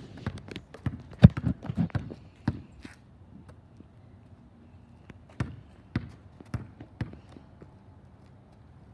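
A basketball bouncing on a concrete driveway: a quick run of bounces and knocks in the first three seconds, then four single bounces about half a second apart near the middle.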